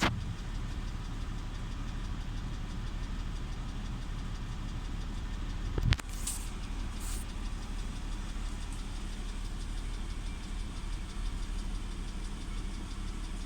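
BMW N52B30 straight-six idling, shaking from a combustion misfire on cylinder 6 that new Bosch spark plugs have not cured. A single sharp knock about six seconds in.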